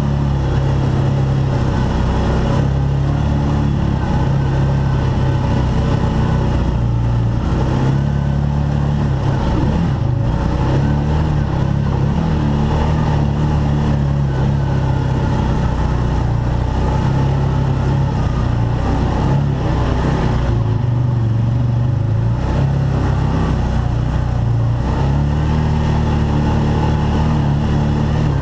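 Arctic Cat Wildcat side-by-side engine running under way, its pitch rising and falling as the throttle changes.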